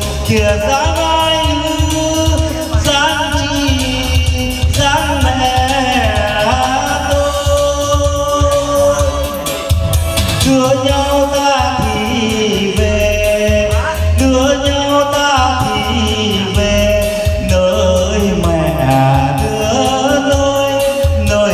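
Karaoke backing music with a steady bass beat and a wavering melodic lead line, an instrumental passage between sung verses.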